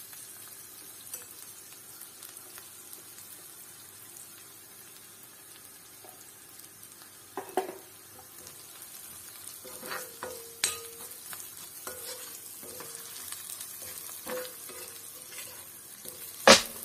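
Shallots, curry leaves and chilli flakes frying in oil in an iron pan, a quiet steady sizzle, while a steel spatula stirs them. The spatula scrapes and knocks against the pan now and then, loudest just before the end.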